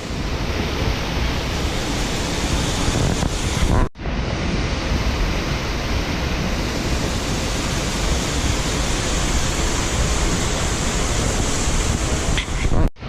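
Steady rushing of a spring-fed waterfall, with two brief breaks about four seconds in and near the end.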